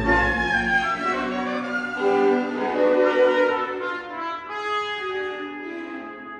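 Live symphony orchestra playing sustained chords, with the brass section prominent. The deep bass drops out about a second and a half in, and the music thins and grows quieter over the last couple of seconds.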